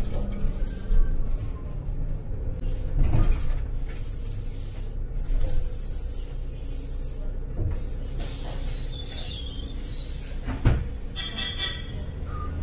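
Inside a city bus: steady engine and road rumble, with repeated short hisses of air and two loud knocks or rattles, one about three seconds in and one near the end.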